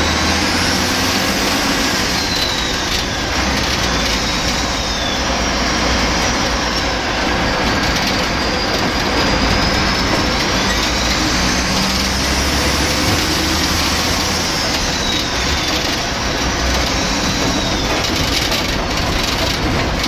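DAF bus's Cummins C-series straight-six diesel running under way, heard loud from inside the cab over the engine cover, with a high whine that rises and falls every few seconds.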